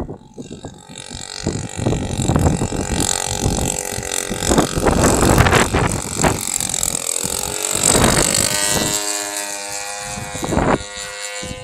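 Large RC airplane's 50cc gasoline engine running, its note wavering slightly in pitch and standing out more clearly in the second half.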